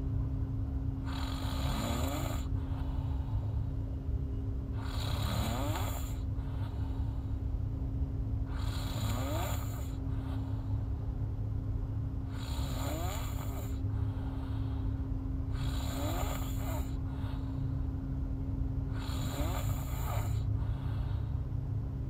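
A woman snoring in her sleep with her mouth open: six snores, one about every three and a half to four seconds, over a steady low hum.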